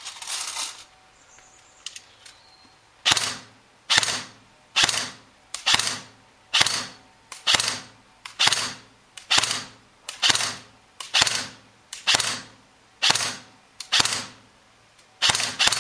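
G&G M4 CQB-S airsoft electric rifle with pneumatic blowback firing single semi-automatic shots. About fifteen sharp snaps come about one a second from some three seconds in, each fading quickly, with the last two close together near the end.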